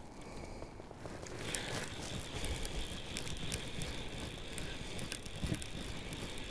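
Fly reel's drag clicking rapidly as a hooked trout runs and pulls line off the reel, setting in about a second and a half in and running on steadily.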